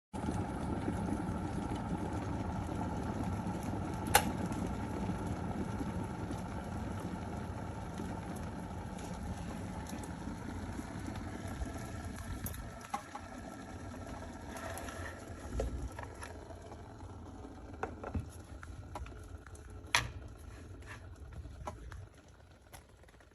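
COSORI electric kettle boiling water: a steady, low bubbling rush that slowly dies down and fades out near the end, with a few sharp clicks along the way.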